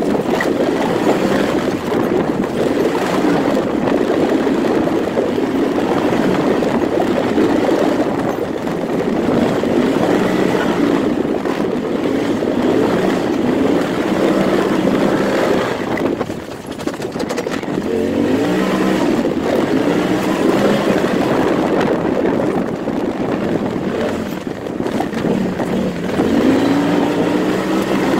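Turbo S side-by-side's engine running hard along a dirt track, its pitch rising and falling over and over with the throttle, with a brief let-off a little past halfway before it revs back up.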